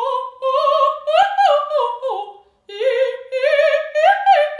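A woman's operatic voice sings a vowel warm-up exercise with vibrato. There are two phrases, each climbing in steps and stepping back down, with a short breath between them a little over halfway through.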